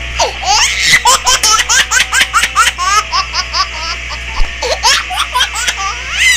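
A baby laughing in quick repeated bursts, each rising in pitch, in two runs with a short pause between them.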